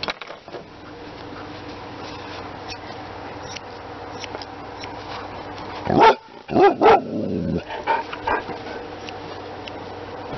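A dog barking: three loud barks in quick succession about six seconds in, the last one trailing off into a falling whine, followed by a couple of softer yips.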